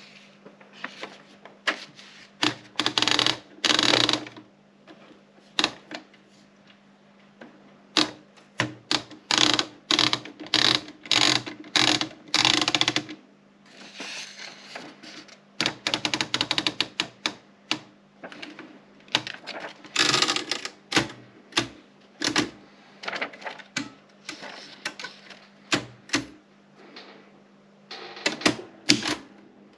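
Erika 30 typewriter being typed on: runs of sharp key strikes with short pauses between the runs.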